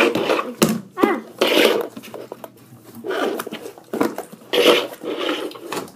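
Packaging rustling in about five bursts as it is handled and opened.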